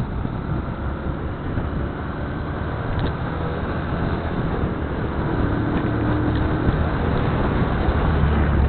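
Motorcycle engine running while riding at road speed, with wind and road noise on the microphone, growing steadily louder toward the end.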